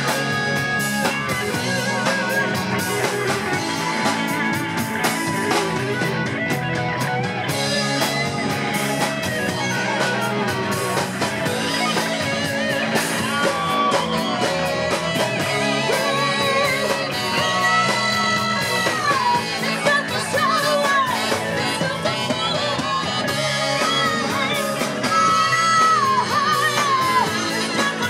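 Live rock band playing electric guitar, saxophone, keyboard and drums, with a man singing lead.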